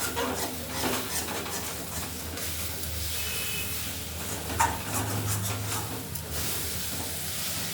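A spatula stirring flat beans in a besan coating and mustard oil in a kadai: intermittent scrapes and knocks against the pan over a faint sizzle, with a low steady hum underneath.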